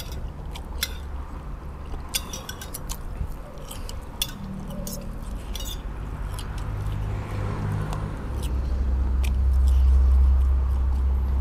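A person chewing a mouthful of khanom jeen rice noodles and curry, with light clicks of a fork and spoon against a plate. Under it a low steady hum swells, loudest near the end.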